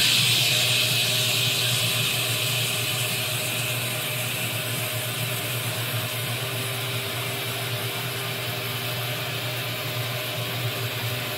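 Ridgid wet/dry shop vacuum running steadily, with a hiss of drawn air that eases off over the first few seconds.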